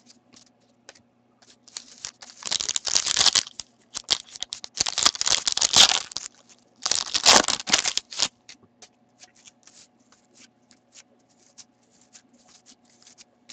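Foil wrapper of a hockey trading-card pack being torn open and crinkled, in three loud crackling bursts in the first eight seconds, followed by faint ticks as the cards are handled.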